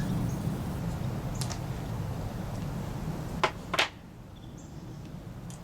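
Two sharp metallic clicks about half a second apart, from a socket wrench and tools being handled on a chainsaw's nuts, over a steady low hum that drops away just after the second click.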